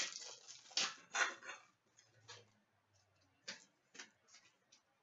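Hockey trading cards and pack wrapper being handled: a burst of rustling in the first second and a half, then a few sharp clicks as cards are flicked and tapped.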